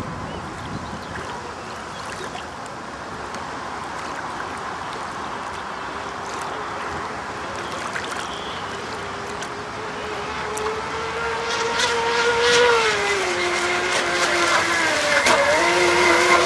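Radio-controlled racing boats running flat out on the water, a high-pitched engine whine that grows louder from about ten seconds in as a boat comes close, its pitch dipping and climbing again twice as the throttle eases and opens.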